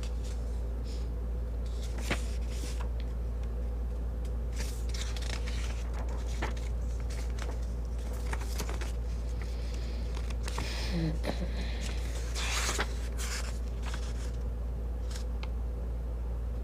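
Scattered rustling and small clicks of paper and small parts being handled, over a steady low hum.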